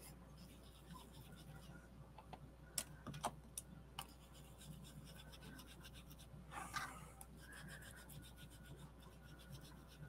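Faint, steady scratchy rubbing of an ink applicator worked over paper, blending ink in, with a few light taps about three seconds in and a louder stretch of rubbing about two-thirds of the way through.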